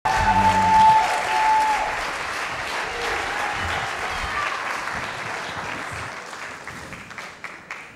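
Audience applauding in a hall, gradually dying away. A held tone sounds over the applause for the first two seconds.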